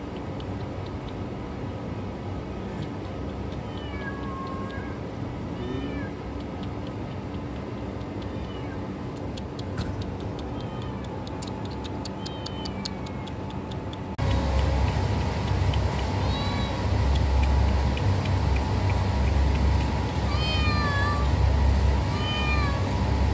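Hungry kitten meowing over and over, short cries that rise and fall in pitch, crying for food. About 14 s in, a louder steady low rumble comes in under the meows.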